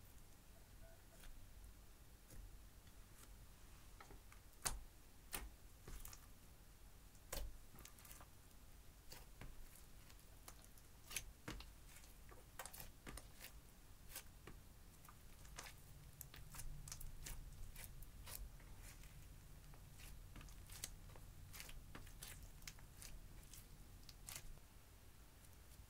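Clear slime mixed with crushed eyeshadow powder being kneaded and stretched by hand, giving faint, irregular sticky clicks and pops, a few of them louder.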